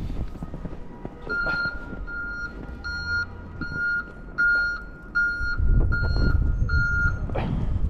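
A vehicle's reversing alarm beeping steadily, about nine single-tone beeps at roughly one and a half a second, over wind buffeting the microphone and a low rumble.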